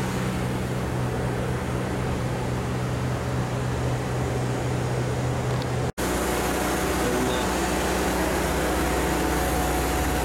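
Steady machinery hum, like running fans or an air-handling unit, with a few steady low tones. It cuts out for an instant about six seconds in, then carries on as a deeper, lower drone.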